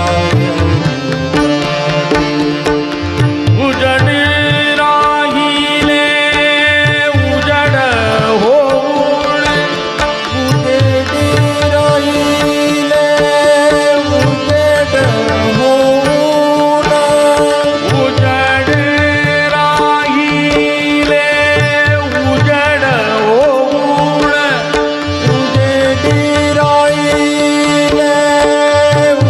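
Marathi abhang devotional music: tabla playing steady rhythmic strokes under harmonium and a tanpura drone, with a voice singing long held phrases that glide between notes.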